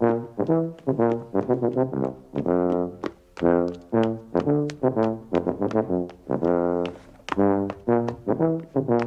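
Background music: a brass tune played in short, separate notes at a steady pace, with sharp ticks between the notes.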